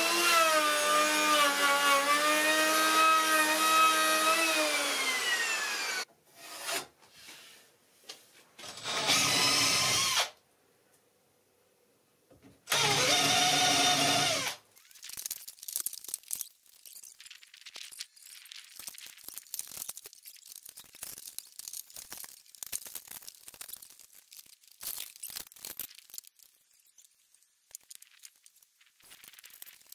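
Handheld electric router running on wood, then spinning down about five seconds in. A cordless drill follows in two short runs, about ten and thirteen seconds in. After that there are only scattered light knocks and clatter.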